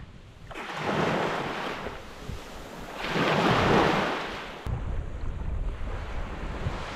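Small waves breaking and washing up a sandy beach in two surges, the second the louder. About two-thirds of the way through, gusty wind buffeting the microphone brings in a low rumble over a steady hiss of surf.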